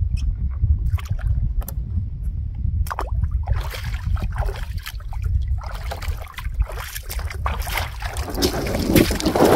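Wind rumbling on the microphone, over small knocks and water splashes as a kayaker climbs out of a kayak and wades barefoot through shallow water onto a stony shore. The splashing grows louder and closer near the end.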